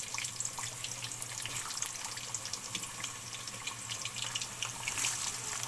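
Pieces of food frying in hot oil in a pan: a steady sizzle with many small crackles and pops, over a steady low hum.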